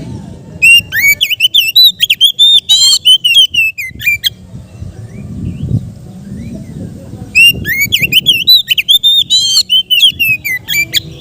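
Oriental magpie-robin singing loudly in two bouts of fast, varied whistled phrases. The notes slide quickly up and down and include a rapid trill in the first bout, over a faint low rumble of background noise.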